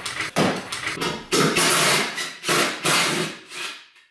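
Loud bursts of metal tool work under a car, several short ones and then longer ones, dying away near the end.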